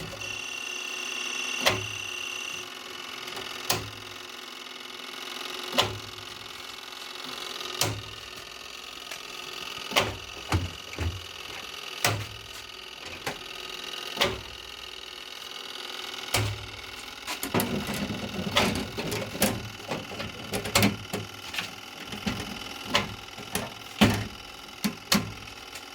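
An electrical contactor in a siren control box clicking in and out about every two seconds, each click with a short burst of mains hum from its coil. After about 17 seconds a quicker, irregular clatter of clicks and knocks from the box follows.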